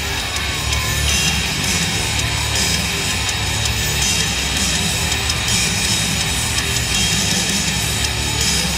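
Loud heavy rock music with electric guitars, playing steadily.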